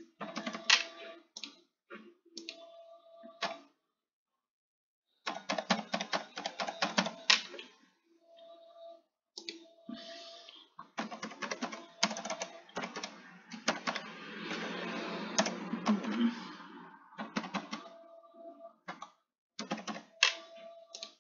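Computer keyboard typing in quick bursts of keystrokes, with short pauses between them.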